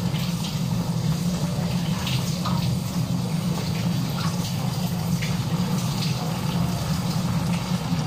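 Chicken with soy sauce cooking in a frying pan on the stove, a steady hiss over a constant low hum.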